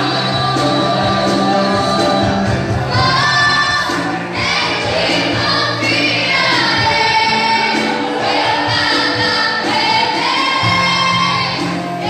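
Gospel worship music with several voices singing together over a steady instrumental backing.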